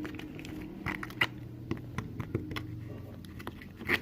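A stick clicking and scraping against a cup while stirring a slime mixture of glue and activator: a run of irregular light clicks and taps.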